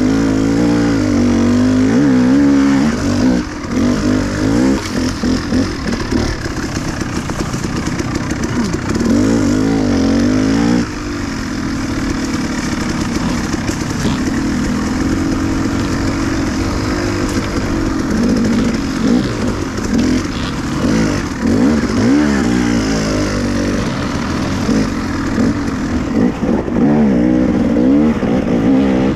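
Dirt bike engine revving up and down as it is ridden, its pitch rising and falling with the throttle, briefly easing off about a third of the way in.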